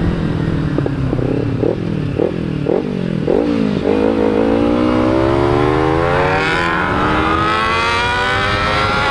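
Sport motorcycle engines under way: a quick series of short revs, each rising and dropping, then from about four seconds in a long acceleration with the engine pitch climbing steadily, easing briefly near seven seconds.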